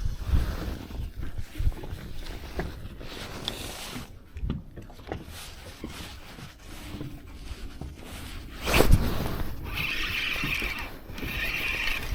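Knocks and bumps from handling gear in a fishing boat, with one louder bump or splash about nine seconds in, then a steady whirring that comes and goes twice near the end.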